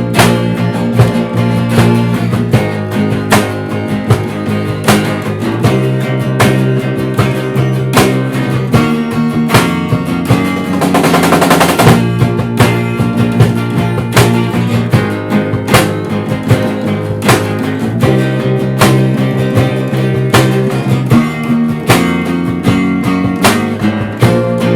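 Instrumental music led by strummed acoustic guitar chords, with sharp regular accents. About eleven seconds in there is a flurry of very rapid strokes lasting about a second.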